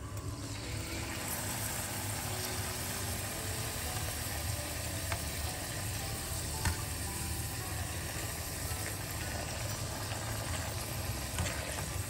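Food sizzling steadily in a hot frying pan, with a few sharp clinks of a cooking utensil about 5, 6.5 and 11.5 seconds in.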